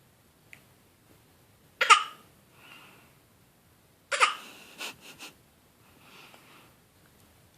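Eight-month-old baby giving deliberate fake coughs: one sharp cough about two seconds in and another about four seconds in that trails into two smaller ones, each followed by a soft breathy voice sound.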